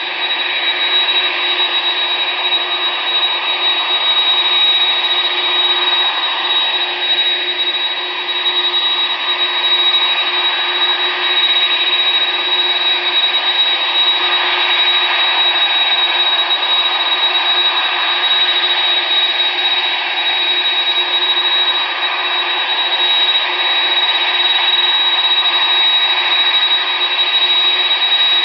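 Boeing 747-400F freighter's four jet engines running at taxi power: a steady jet whine with a high, constant fan tone over it.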